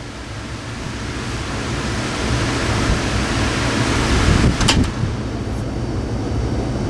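Lakewood R12/DSK 12-inch oscillating desk fan running on high: a steady rush of air over a low motor hum, growing louder over the first two seconds. A brief click comes about four and a half seconds in.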